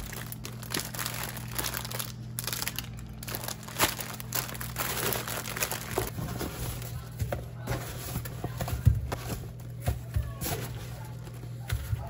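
Plastic grocery packaging crinkling and rustling in irregular handfuls as produce is handled and unpacked, over background music.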